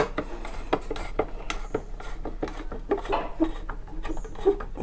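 A hand screwdriver working screws out of an LED TV's housing and stand: irregular small clicks and scraping of metal on screws and plastic.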